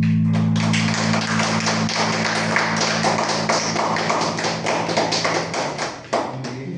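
Audience applauding with dense, irregular clapping that dies away near the end, while the low final chord of an amplified guitar holds underneath and stops shortly before the clapping fades.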